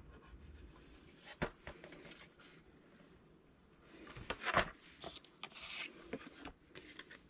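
Cardstock panels of a paper explosion box being handled and unfolded: quiet paper rubbing and rustling with a few light taps, the loudest a little past four seconds in.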